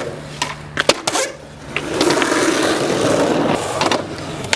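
Skateboard wheels rolling on concrete, with a few sharp clacks of the board about a second in.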